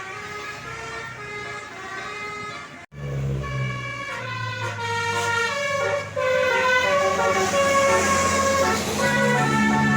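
Tour bus Basuri telolet horn playing a multi-note tune, stepping from one note to the next every fraction of a second. It drops out briefly about three seconds in and comes back louder.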